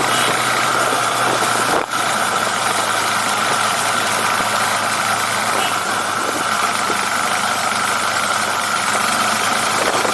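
KTM 390 Adventure's single-cylinder engine running steadily, with a brief dip in loudness about two seconds in.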